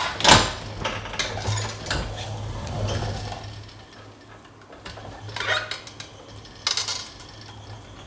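Mechanical clicks, knocks and rattles from a power wheelchair as it comes right up close. A sharp knock just after the start is the loudest, with more clatter after the middle and near the end.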